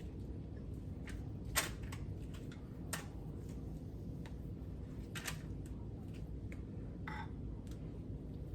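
Light clicks and taps of kitchen utensils while barbecue sauce is brushed onto baked ribs, scattered a few seconds apart with the sharpest about one and a half seconds in, over a steady low hum.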